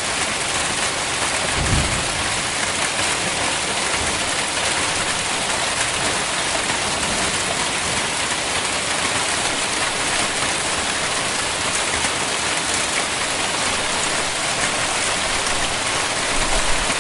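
Hailstorm: a steady, dense patter of hail and rain striking surfaces, with a brief low thump about two seconds in.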